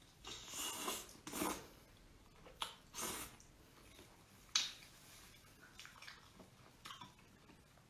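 Wet sucking and chewing sounds of a person eating braised chicken feet, in short bursts with pauses between, including a sharper click about four and a half seconds in.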